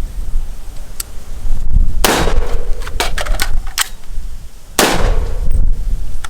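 SIG MCX rifle firing two shots about three seconds apart, each with a short ringing tail, with a few sharp clicks between them. Steady wind rumble on the microphone underneath.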